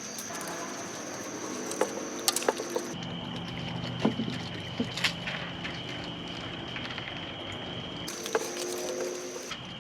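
Night insects trilling steadily, the trill switching between a higher and a lower pitch a few times, over scattered clicks, knocks and rustling from raccoons tugging at treat-filled dog toys on the lawn.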